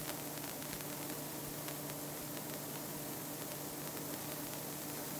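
Steady hiss with a low, even hum underneath: the background room tone of the dialogue recording, with no other event.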